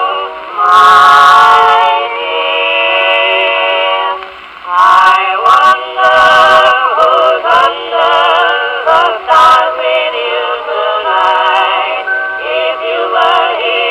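A 78 rpm record playing on a 1920 Columbia Grafonola wind-up phonograph: music with wavering held notes and a thin sound with almost no bass, plus a few brief clicks.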